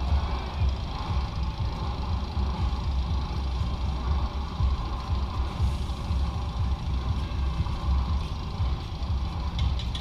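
Wind buffeting the microphone: an uneven low rumble that never settles, over faint outdoor ambience.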